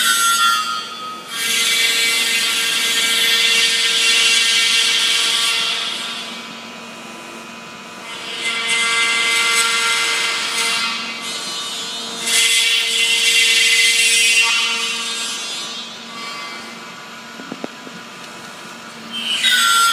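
An Emmegi Phantomatic T4 CNC profile machining centre cutting a profile. A steady high spindle whine runs throughout, and the harsh cutting noise comes in several bursts of a few seconds each as the tool works along the piece.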